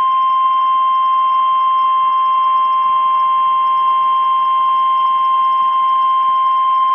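NOAA Weather Radio warning alarm tone: one loud, unbroken, high steady tone just above 1 kHz, the alert signal that comes before a new warning is read out.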